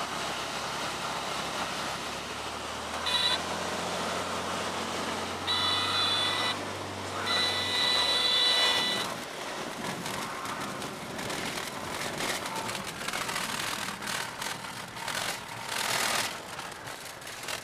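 Light single-engine bush plane landing on a grass strip, heard from the cockpit: the engine hums at low throttle while the stall warning horn sounds in short blasts about three seconds in and again around six and eight seconds, through the flare and touchdown. After that the engine hum drops away, and the cabin fills with the uneven rumble and rattle of rolling over rough grass.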